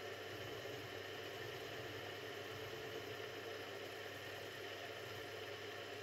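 Mini milling machine running steadily, with a 7/32-inch end mill plunge-cutting a recess in a cast iron cylinder: an even, unchanging hum.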